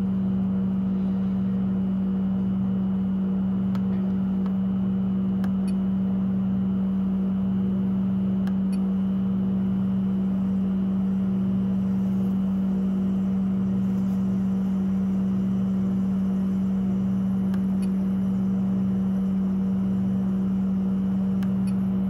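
Rheem hybrid heat pump water heater running with its compressor switched on in service test mode: a steady machine hum with a lower throb that pulses about once a second. A few light clicks come from the control-panel buttons being pressed.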